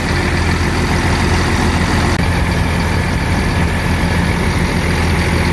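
Timbco feller buncher's diesel engine running at a steady speed, a constant low drone with no change in pitch.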